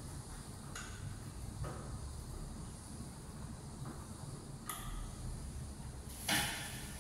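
Hand screwdriver working at a metal window frame: a few faint clicks and scrapes, then one louder sharp metallic clink-and-scrape near the end.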